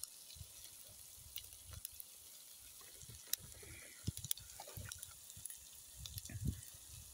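Corned beef hash frying quietly in a cast-iron skillet over a small wood fire: a steady sizzling hiss with scattered sharp pops and crackles. Low rumbles come and go, strongest near the end.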